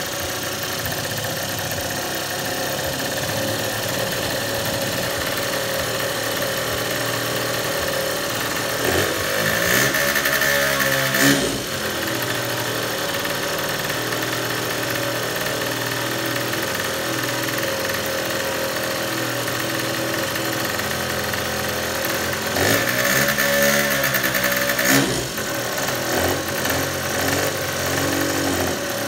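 Small 50cc two-stroke scooter engine running on its first start after a top-end rebuild. The throttle is blipped twice, about ten seconds in and again past twenty seconds, and each time the revs rise and fall back. The unsteady running is a sign that the new carburettor still needs adjusting.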